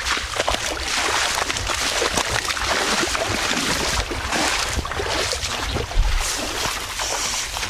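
Water sloshing and splashing as someone wades through it on foot, in repeated surges.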